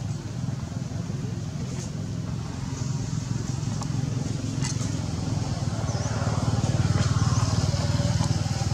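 An engine runs steadily as a low pulsing hum and grows louder about six seconds in, with a few faint bird chirps.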